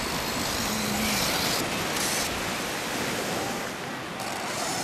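Steady noise of surf breaking on the shore and wind on the microphone, with a brief faint whine about a second in that fits the electric motor of an RC truck.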